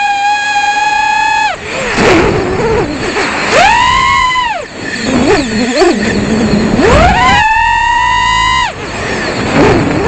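iFlight Nazgul FPV quadcopter's motors and propellers whining under throttle. A steady high whine cuts off about a second and a half in, swells up and falls away again around the middle, then climbs back up, holds, and cuts off near the end.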